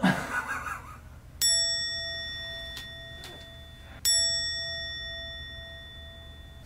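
A short swish, then a small bell struck twice, about two and a half seconds apart, each strike ringing on and slowly fading: a comic 'ding' sound effect.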